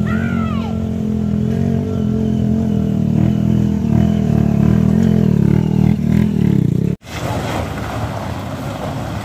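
Motorcycle engine running and revving unevenly as it climbs a loose dirt-and-gravel road, louder as it passes close. About two-thirds of the way in the sound cuts abruptly to a rougher, noisier rumble of a stuck dump truck's engine.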